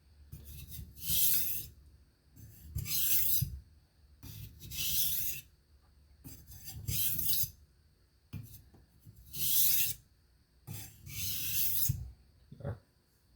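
Steel knife blade being drawn across a wet Cerax 1000-grit water stone in repeated rasping strokes, about one every two seconds, with short pauses between them. This is the 1000-grit stage that refines an edge first set on a 300-grit stone.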